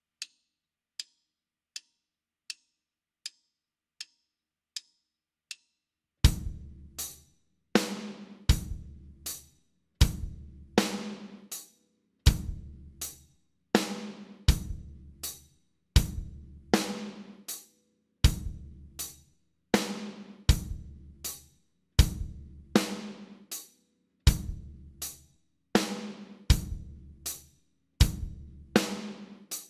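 Eight short, evenly spaced clicks count in. About six seconds in, a drum kit starts playing a slow, steady eighth-note pulse at 40 beats per minute, each stroke a low drum hit with a ringing cymbal.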